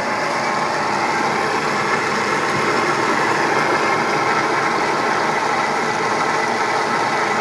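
Bridgeport Series 1 2 hp CNC milling machine running, a steady mechanical whir with a faint steady whine: the spindle turning while the Z axis feeds down under program control.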